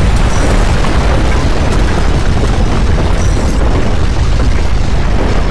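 Loud, continuous deep rumble of earthquake shaking, with a rough crackling noise above it and a few faint ticks.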